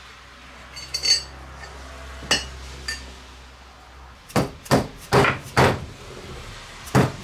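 Soft-faced mallet striking a new ring gear to seat it onto a Chrysler 9.25 differential carrier: a quick run of blows starting about four seconds in, then two more near the end. Before that, a few light metal clinks as the ring gear bolts are started.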